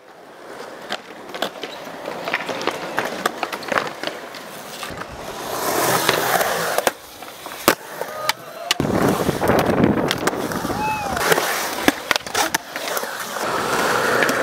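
Skateboard wheels rolling over a concrete bowl, with sharp clacks of the board hitting the concrete between stretches of rolling. The rolling gets louder about halfway through.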